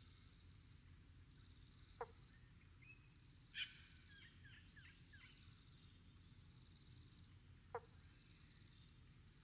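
Faint calls of small animals: a high, even chirp repeating about once a second, two quick falling whistles, and a brief flurry of chirping calls about three and a half seconds in.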